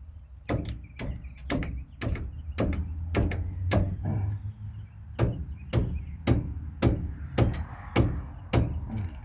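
A socket wrench working on a brake caliper bolt: sharp metallic clicks, evenly spaced about twice a second, over a low steady hum.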